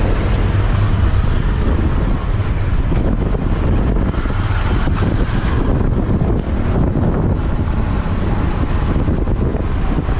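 Steady traffic noise from the back of a moving motorbike taxi weaving through jammed city traffic: the motorbike's engine and the cars around it.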